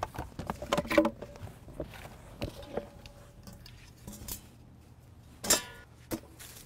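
Scattered rustles, knocks and light clatters of clutter being pulled out of a minivan and dropped into plastic laundry baskets, with one louder noise about five and a half seconds in.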